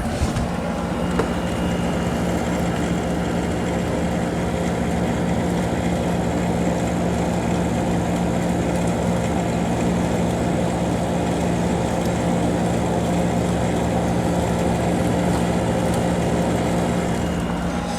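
Samsung 10,200 BTU window air conditioner running: a steady hum of its rotary compressor and fan, with a constant low tone under an even rush of air.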